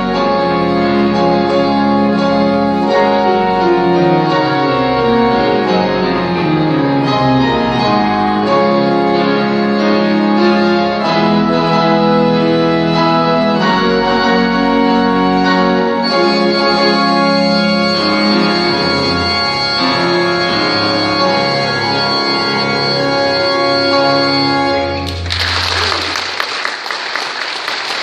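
Organ and piano playing a patriotic medley together in a large church sanctuary. About 25 seconds in the music stops and the congregation breaks into applause.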